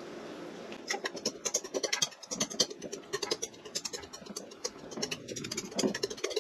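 A metal fork mashing bananas in a stainless steel bowl: rapid, irregular scraping and clinking of metal on metal, starting about a second in.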